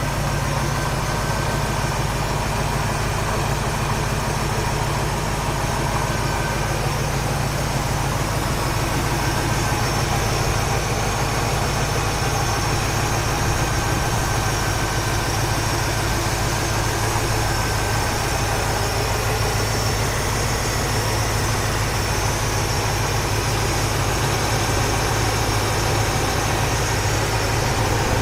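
1972 Chevrolet C20 Suburban's engine idling steadily, running with a newly replaced water pump.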